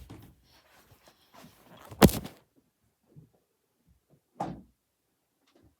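A sharp, loud thump about two seconds in, followed by softer knocks, one clearer one after about four and a half seconds.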